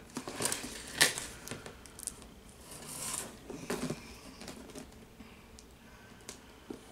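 A large cardboard box being lifted off a table and handled: a sharp knock about a second in, with scraping, rustling and several clicks over the next few seconds, then only faint ticks.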